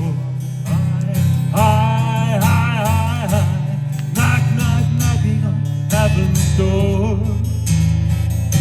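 Mantra music: a voice singing a slow melody over strummed acoustic guitar.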